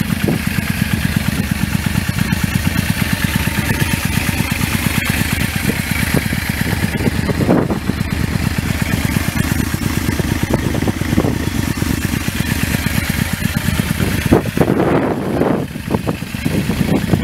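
Yamaha V-Max V4 engine idling through an aftermarket carbon slip-on silencer, with a fast, even exhaust pulse. It swells briefly louder about seven and a half seconds in and a few times near the end.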